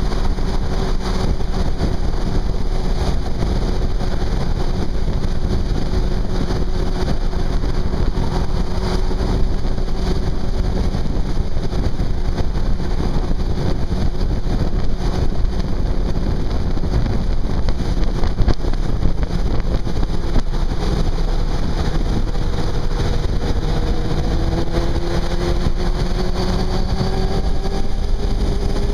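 Yamaha YZF600 inline-four motorcycle engine running at cruising speed under heavy wind and road noise from the bike-mounted microphone. Near the end the engine note rises steadily in pitch as the revs climb.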